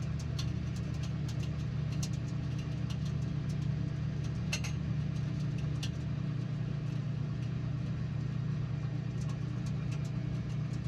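Microwave oven running with a steady low hum while a cactus heating inside it crackles, with scattered sharp pops at irregular intervals.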